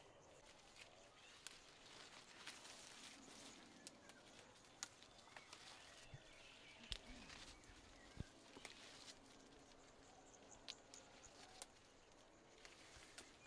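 Grapevine foliage rustling and leaf stems snapping as grape leaves are picked by hand, a faint scatter of irregular soft clicks over a low hiss.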